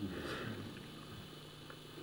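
A soft, brief breath or murmur from a person close to the microphone in the first half-second, then a steady low electrical hum.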